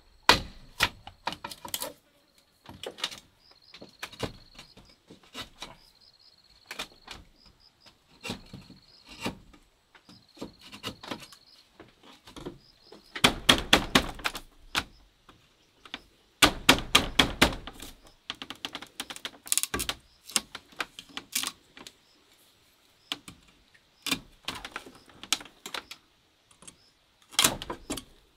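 Knife chopping in quick runs of sharp strikes, with two dense bursts of very rapid chops about halfway through.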